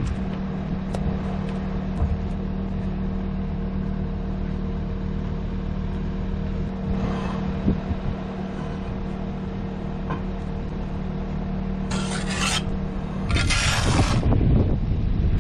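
A motor runs with a steady hum throughout. Two short rasping scrapes come near the end, the second longer and louder.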